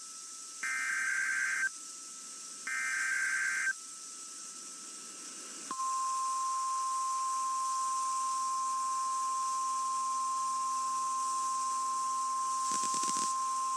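NOAA Weather Radio alert signalling over radio hiss: two buzzy, screeching SAME header data bursts about a second long and a second apart, then, after a pause of about two seconds, the steady 1050 Hz weather radio warning alarm tone starts about six seconds in and holds. There is a short crackle of static near the end.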